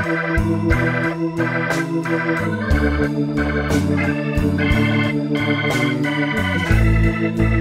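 Instrumental background music: a keyboard melody over a stepping bass line with a steady beat.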